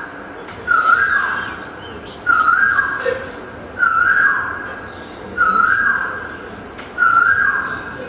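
A bird's whistled call repeated five times at a steady pace, about one and a half seconds apart. Each note starts suddenly, holds briefly on one pitch, then slides down.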